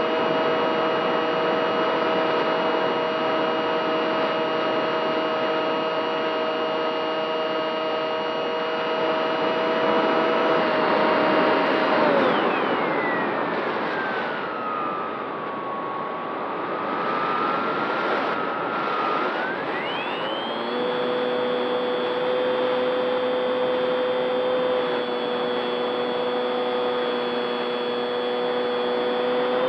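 The motor and propeller of a radio-controlled model Spitfire, heard from its onboard camera: a steady whine over rushing air. About 12 seconds in the whine drops steeply in pitch, then about 20 seconds in it climbs back to a steady whine.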